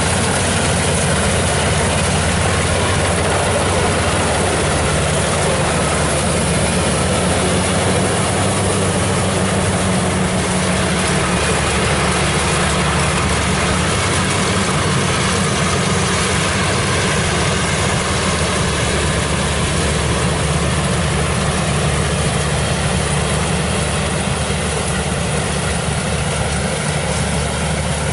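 Kubota rice combine harvester running steadily as it cuts and threshes rice, its diesel engine humming low under a constant machinery din; it grows slightly fainter near the end.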